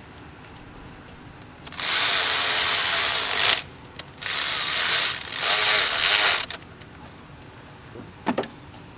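Ratchet wrench run in three bursts of a second or two each, driving down 7 mm fasteners, followed by a short knock near the end.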